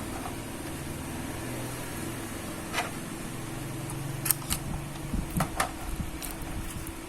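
A few sharp clicks and taps from small laptop parts being handled, over a steady room hum.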